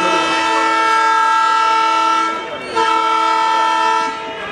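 Train horn giving the departure signal as the train is flagged off: a steady blast of several tones at once, a short break about two and a half seconds in, then a second blast that stops shortly before the end.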